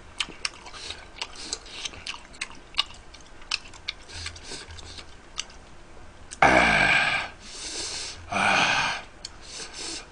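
A man burps twice, a long burp about six and a half seconds in and a shorter one about two seconds later, over faint scattered clicking.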